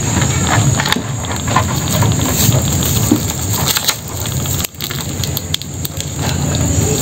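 Crackling and scraping as a live mud crab is held down on wooden planks and its claws are bound with string: the crab's shell and legs scratch on the boards, and hands and cord rustle, with many small clicks.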